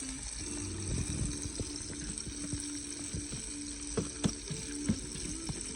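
Fish milt sacs frying in hot oil in a pan, a steady sizzle, with a few sharp clicks near the end.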